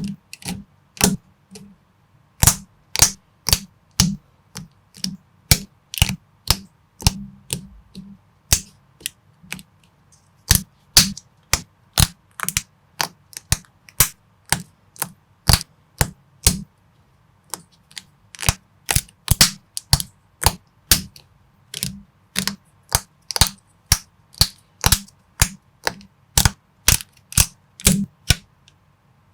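Plastic Lego-compatible bricks clicking as they are pressed together: a steady run of sharp clicks, about two a second, some louder than others.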